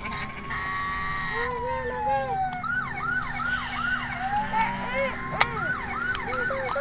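Electronic siren sound effect from a toy emergency vehicle. It plays a slow rising and falling wail twice, a short steady horn-like tone about a second in, and runs of rapid yelping sweeps, about three a second.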